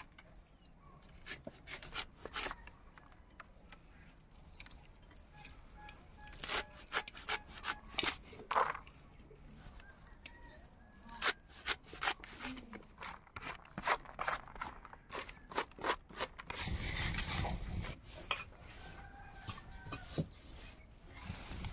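Leafy greens being chopped on a boti, a fixed curved blade: crisp cutting strokes come in quick runs of several a second. Near the end there is a brief burst of noise and a few faint bird calls.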